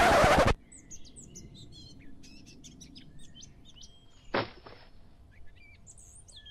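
Faint birds chirping as a background ambience, opened by a loud half-second burst of hiss that cuts off sharply. About four seconds in comes a brief whoosh as a vape pen is tossed aside.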